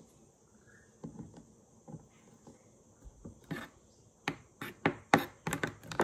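Kitchen knife chopping fresh alfavaca and chicória herbs on a plastic cutting board: a few scattered knocks at first, then quicker, louder chops in the last two seconds.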